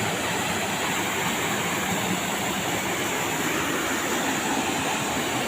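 River water rushing steadily, an even hiss and rumble with no breaks.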